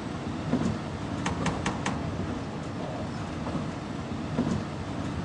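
Seoul Subway Line 4 train running with a steady rumble, with four quick clicks about a second in.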